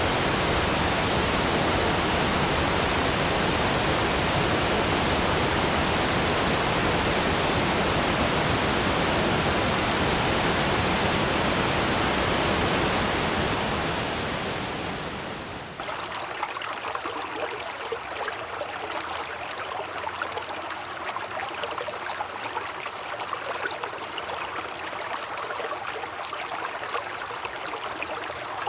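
Steady rushing of a forest waterfall. About halfway through it fades and cuts to a quieter, more uneven splashing and trickling flow of water.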